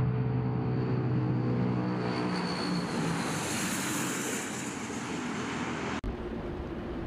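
Tu-95 bomber's turboprop engines and contra-rotating propellers running on the runway: a steady low drone with a high whine and rushing noise. About six seconds in it cuts off suddenly to wind and sea wash.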